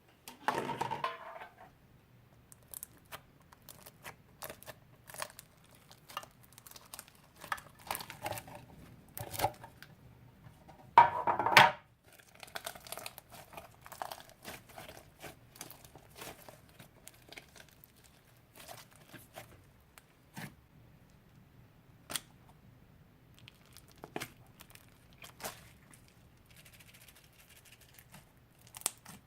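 Slime being kneaded and squished by hand: a string of short clicks and pops, with longer, louder bursts near the start and again about eleven seconds in.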